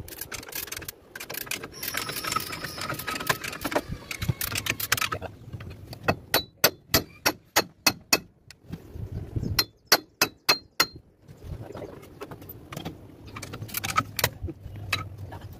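Hand wrenches clinking and tapping on the steel of a truck's clutch bell housing. There are scattered metallic clinks at first, then a regular series of sharp ringing clicks, about three a second, in the middle.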